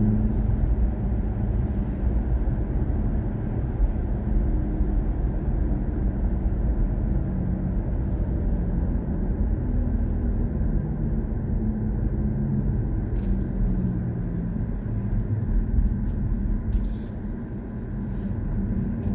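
Steady road and tyre rumble heard from inside the cabin of a moving BMW i4 M50 electric car, with no engine note; the rumble eases a little near the end as the car slows for a roundabout.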